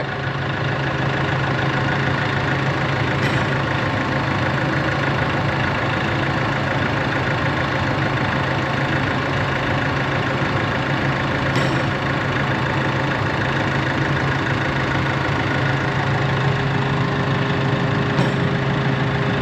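Case CX300D excavator's diesel engine idling steadily, with three faint clicks spread through.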